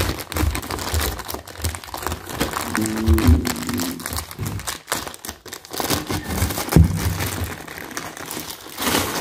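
Clear plastic packaging bags crinkling and crackling nonstop as they are handled and pulled open to unwrap the tripod.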